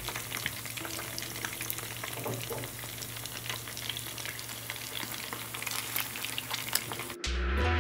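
Food sizzling and crackling as it fries in a pan of hot oil, with a dense run of spattering pops. Near the end the frying cuts off suddenly and music takes over.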